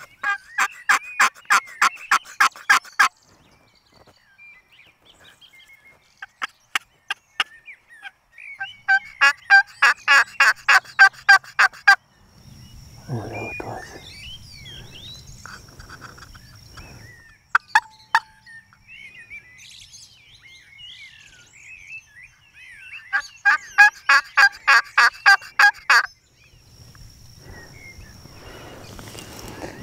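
Hand-held turkey call worked in three series of yelps, each a run of about a dozen quick, even notes lasting around three seconds: one at the start, one about ten seconds in and one late on, calling to gobblers out of sight in the field.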